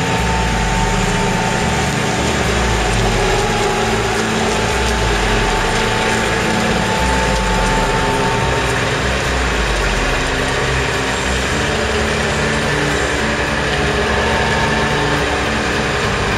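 Large boat-stacking forklift's engine running steadily as it carries a motor boat on its raised forks, with a steady whine over the engine note.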